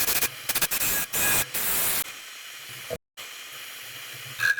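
Several short bursts of hissing spray, then a fainter steady hiss. Near the end a motor starts up with a steady high whine over a low hum.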